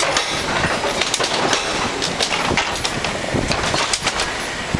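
Car tyres rolling over the boards laid across the rails of an old railroad bridge deck: a steady rattle of irregular knocks and clatters.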